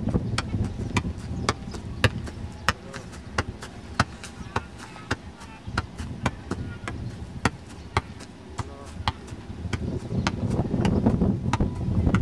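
Sharp knocks or taps, irregular, a few each second, over a low background rumble. Louder low sound, likely voices, returns near the end.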